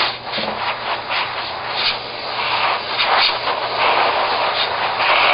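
Compressed air hissing from an air-hose nozzle, blown over a freshly CA-glued joint to speed the glue's curing. The hiss swells and dips as the flow changes.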